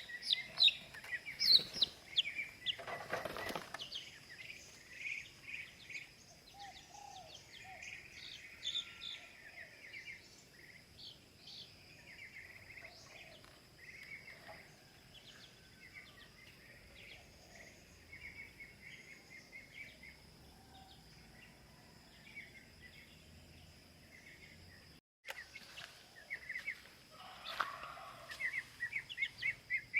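Young chicks peeping: short, high chirps scattered throughout, coming thicker and louder near the end, with a brief louder noise about three seconds in.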